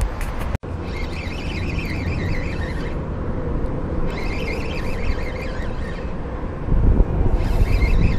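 Spinning reel being cranked to retrieve line, its gears whirring in three spurts with short pauses between, over wind rumbling on the microphone.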